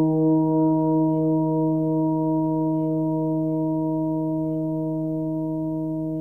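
Large Tibetan gong ringing on after a strike: a chord of several steady tones with a slow pulsing wobble that settles as the whole sound slowly dies away.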